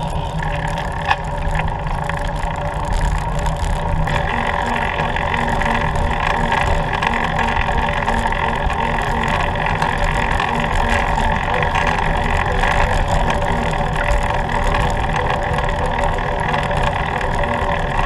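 Steady traffic and road noise heard from a moving recumbent trike, with a steady hum that grows stronger about four seconds in.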